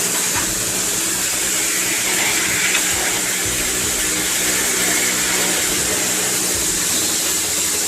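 Pressure washer jet spraying steadily, cleaning a washing machine's parts; the hiss stops sharply at the end.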